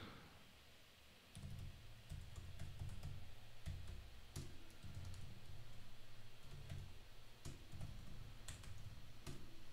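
Typing on a computer keyboard: a steady run of faint key presses with dull low knocks, starting about a second in.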